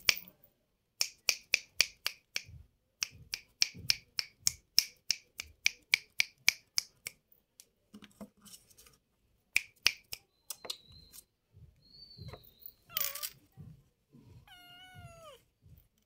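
A rapid run of finger snaps, about three a second for several seconds, then a few scattered snaps. Near the end a cat gives one mew that falls in pitch.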